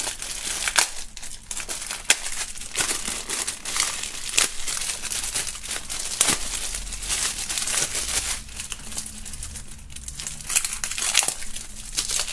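Thin clear plastic bag crinkling and crackling as hands open it and pull out a coiled shisha hose, with a quieter stretch about two-thirds of the way through.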